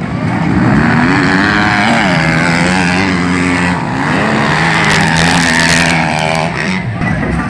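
Several motocross dirt bikes' engines revving together, their pitches rising and falling as the riders work the throttle.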